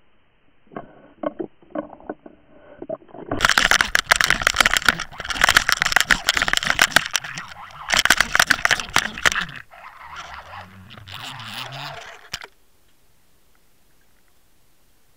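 A pike striking a swimbait, heard through an underwater camera housing. A few sharp knocks come first, then several seconds of loud crackling and scraping as the fish thrashes on the lure. A quieter, lower stretch follows, and the sound cuts off suddenly about twelve seconds in.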